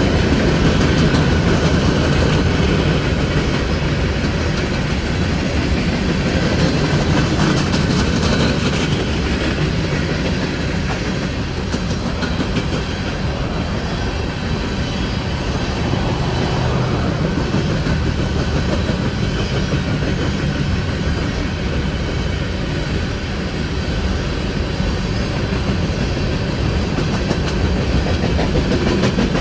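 Coal train's freight cars rolling steadily past, steel wheels clacking over the rail joints.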